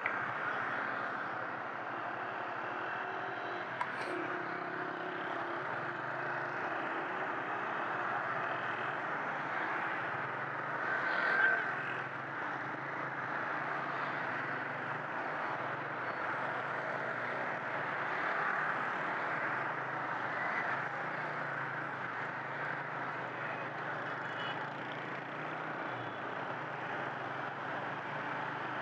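Steady road and traffic noise heard from a small motorcycle riding through city traffic, with a brief louder swell about eleven seconds in.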